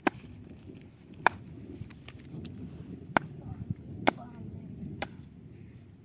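A landed baam (spiny eel) thrashing on the grass: five sharp slaps, about a second apart and irregular, over a low rustle of grass.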